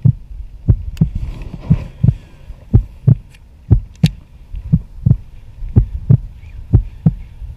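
Heartbeat sound effect: fast, steady low thumps, about three a second.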